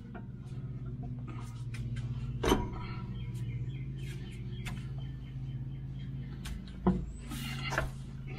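Heavy-truck transmission being pushed and worked against the bellhousing to seat it on a new clutch: metal knocks and clunks, a sharp one about two and a half seconds in and a duller thud near seven seconds, over a steady low hum.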